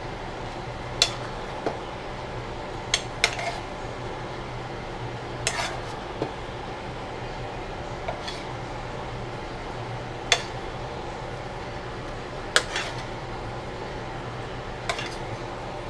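A metal utensil clinking and scraping against a frying pan as food is scooped out of it. There are sharp, briefly ringing knocks at irregular intervals, one every second or two, sometimes two in quick succession.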